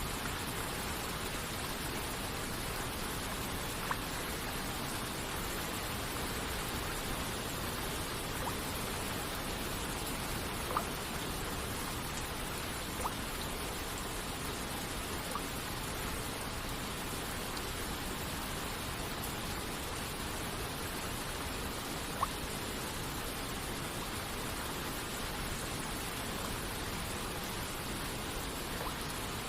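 Steady hiss of rain and rushing waterfall water. About half a dozen single water drops plink clearly above it at irregular moments, a few seconds apart.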